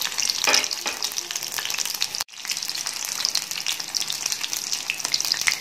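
Batter-coated prawns deep-frying in hot coconut oil in a kadai: a steady dense sizzle full of small pops and crackles. It breaks off for an instant a little over two seconds in, then carries on.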